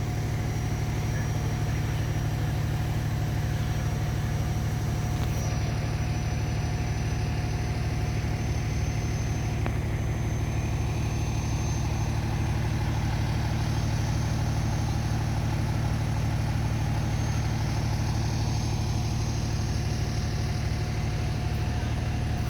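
Fire engine's diesel engine idling steadily: a deep, even rumble with a faint constant high whine over it.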